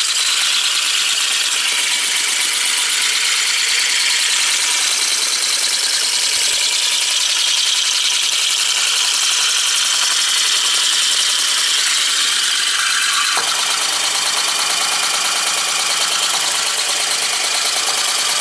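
3D-printed PLA wobbler (oscillating-cylinder) model air engine running fast on about 3 or 4 pounds of compressed air: a steady rapid clatter with the hiss of its exhaust. About two-thirds of the way through the sound gets fuller and lower.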